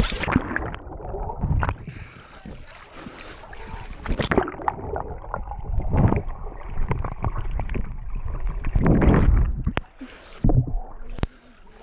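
Water sloshing and splashing around a GoPro as it goes under and comes back up, with irregular muffled rushes and small knocks on the housing. The loudest rush comes near the end.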